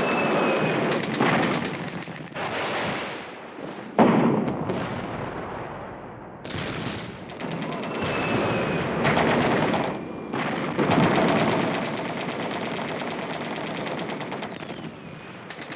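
Automatic gunfire in rapid, dense bursts, with louder sudden hits about four seconds and six and a half seconds in.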